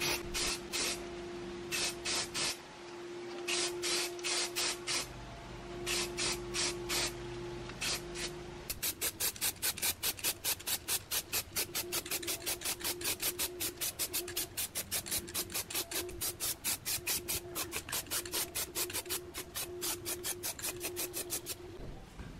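Aerosol spray-paint can hissing in short bursts, in irregular groups at first, then in a quick, even run of about three bursts a second for most of the rest.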